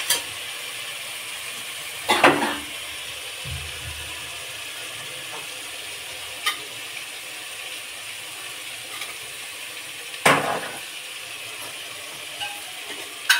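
Onions and ginger-garlic paste sizzling steadily in hot oil in a cooking pot. A spoon stirs and clinks against the pot a few times; the loudest knocks come about two seconds in and about ten seconds in.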